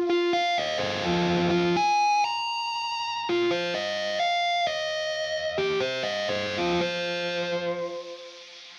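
Digital synthesizer notes and held chords played through a Strymon Iridium amp-and-cabinet simulator pedal, fading away near the end.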